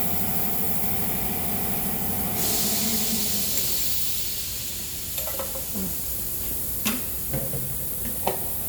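A spray hisses, starting suddenly about two and a half seconds in and lasting a couple of seconds, over a low hum that fades away. After it come several sharp clicks and taps.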